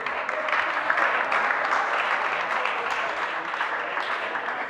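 Spectators applauding after a rally, a dense clapping that swells over the first second or two and eases off toward the end.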